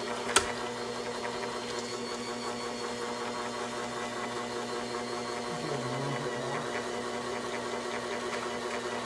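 Sunbeam stand mixer's motor running steadily on its slow kneading setting, the dough hooks turning bread dough in a stainless steel bowl. A single sharp knock comes shortly after the start.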